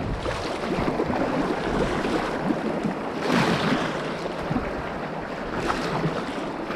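Fast river current rushing around a whitewater kayak, with the paddle splashing through the water and wind buffeting the microphone; the rush swells louder for a moment about three seconds in.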